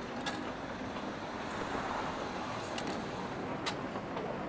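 Steady rain and café background noise, with three sharp clicks.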